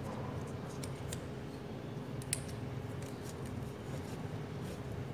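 Scattered light clicks and crinkling of enamelled copper wire coils being handled and fitted into the slots of an electric motor stator, over a steady low hum.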